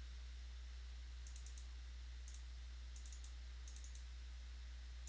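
Faint quick clicks from a computer being operated, in about five short runs of two to four clicks each, over a steady low hum.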